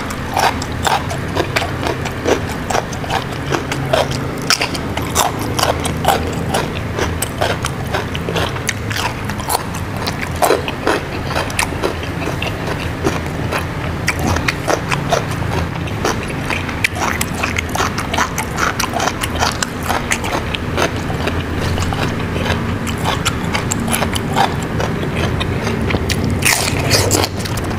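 Close-miked eating: a person biting and chewing, with many short crisp crunches and mouth clicks.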